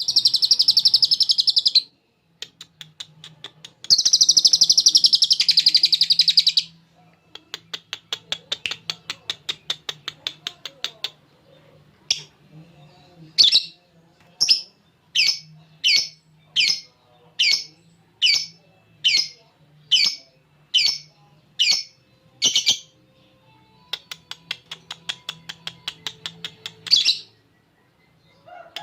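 Lovebird ngekek: long, dense chattering trills in bursts of a few seconds, then a steady run of short sharp chirps, more than one a second, and more chatter near the end.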